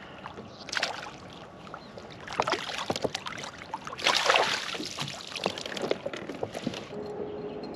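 Water splashing in several bursts beside a fishing kayak while a hooked fish is played on a bent rod, about a second, two and a half and four seconds in, with small clicks of tackle between; the burst at four seconds is the loudest.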